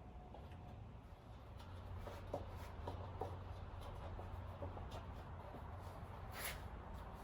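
Faint handling noises of work on a bicycle tire and its parts: scattered light clicks, taps and rustling over a low steady hum, with one brief sharper noise about six and a half seconds in.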